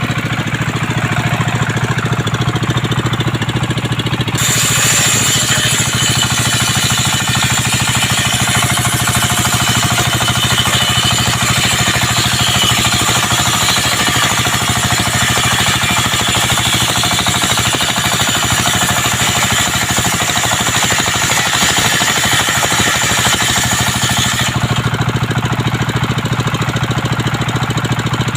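Engine-driven sawmill circular saw running steadily. About four seconds in, the blade starts cutting through coconut wood, adding a high whine and rasp over the engine's drone for about twenty seconds. The blade then runs free again near the end.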